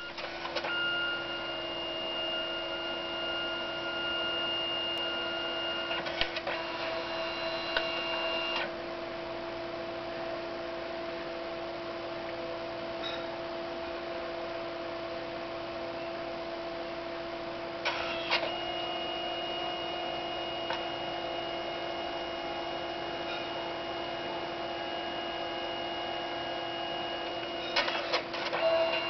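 Canon Selphy CP510 dye-sublimation photo printer printing: its feed motor whirs with steady whining tones over a low hum, shuttling the paper back and forth for the yellow dye pass. Clusters of clicks come about a second in, twice between six and nine seconds, around eighteen seconds and near the end, each time the mechanism shifts and the whine changes pitch.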